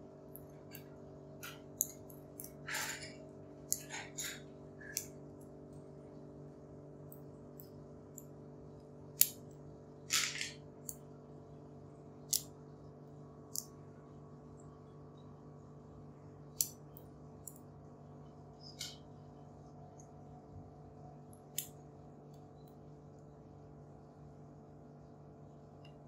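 Irregular small metallic clicks and a few short scrapes of a homemade pick and tension wrench working the pins of a pin-tumbler lock cylinder fitted with spool pins.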